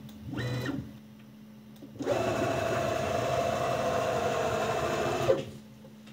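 CNC router's stepper-driven axes making rapid travel moves after the engraving pass: a brief whine near the start, then a louder, steady whine of about three seconds that stops with a short click.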